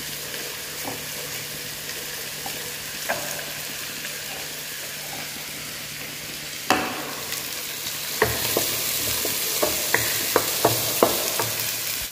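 Chopped onions, green chillies and green garlic sizzling steadily in hot oil as they are lightly fried in a pan. From about seven seconds in, a wooden spoon knocks and scrapes against the pan in a run of sharp clicks as the onions are stirred.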